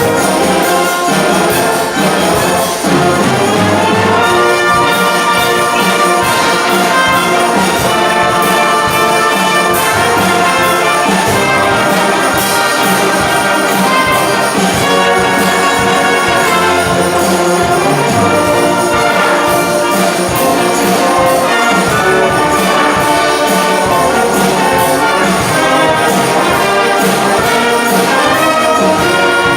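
Elementary school brass band playing a pop arrangement, with trumpets and trombones carrying the tune over steady ensemble accompaniment.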